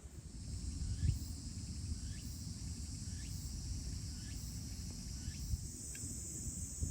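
Steady high-pitched insect trilling over a low outdoor rumble, with short falling chirps about once a second.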